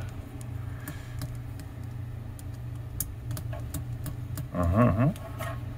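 Light, scattered ticks and clicks of a screwdriver and small screws being worked in a cassette deck's transport mechanism, over a steady low hum. A brief vocal sound comes in near the end.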